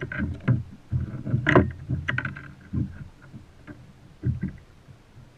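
Irregular thumps and knocks on a plastic sit-on-top kayak as a freshly landed cobia thrashes and is handled, the loudest about a second and a half in.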